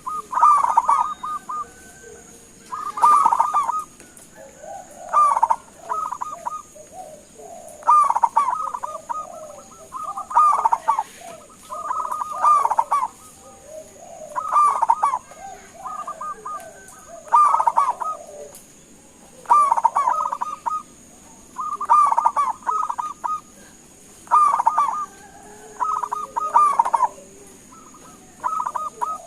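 Zebra dove cooing: short phrases of quick staccato coos, repeated about every two seconds, with a steady high-pitched whine behind them.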